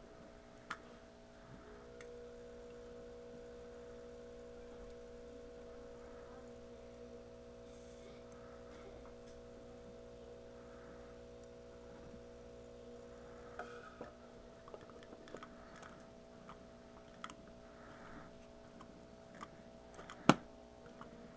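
Faint steady hum of a small aquarium air pump, with soft irregular gurgles from a home-made airlift pump lifting nutrient solution, the percolator-like bubbling of a coffee-can hydroponics system. Light plastic handling clicks, and one sharp click near the end.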